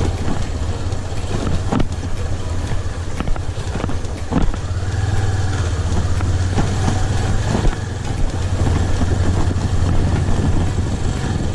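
Motorcycle engine running steadily while riding, a low even hum under road and wind noise, with a few short knocks.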